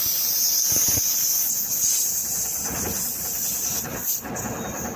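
Air hissing steadily out of the truck tyre's puncture hole after the failed plug has been pulled out, easing off about four seconds in.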